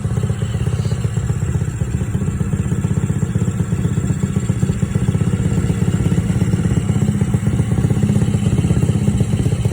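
Small single-cylinder engine idling very rough, its fast pulse uneven in loudness. The spark plug came out very black, which the owner takes as a sign that it is probably burning oil.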